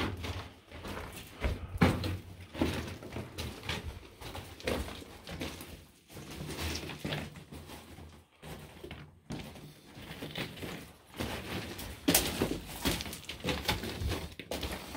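Footsteps of people walking over loose broken rock in a narrow mine tunnel: an irregular run of crunches and knocks.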